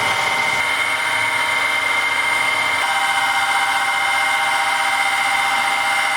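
Electric power tool motor running steadily with a high whine, its tone shifting slightly about halfway through.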